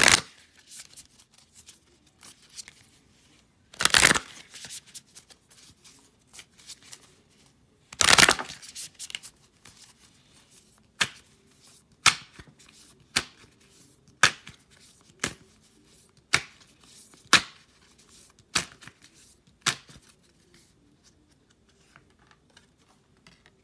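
A deck of oracle cards being shuffled by hand: three loud shuffling bursts, then a run of sharp slaps of cards against cards about once a second that stops a few seconds before the end.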